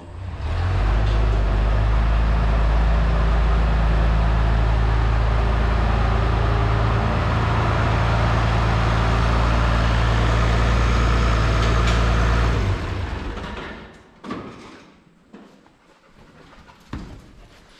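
International 686 tractor's engine running at a steady speed as the tractor is driven. It stops abruptly about twelve seconds in, and a few faint clicks and knocks follow.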